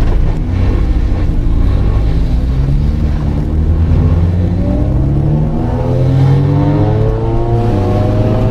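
Four-cylinder Honda car engine accelerating hard in second gear from a rolling start, its pitch climbing steadily over the last five seconds or so, over a heavy low road rumble.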